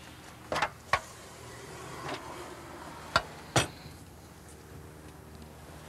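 Sharp metal knocks and clunks as a hand truck and a wheeled copier pallet are slid into a minivan's cargo area. There are two knocks about half a second to a second in, and two more just after three seconds.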